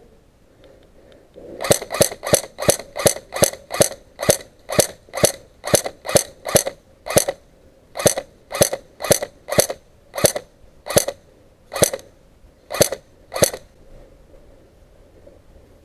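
Airsoft electric gun firing single shots in quick succession, each a sharp clack with a brief gearbox whine. About two dozen shots, roughly three a second at first, then spacing out before stopping near the end.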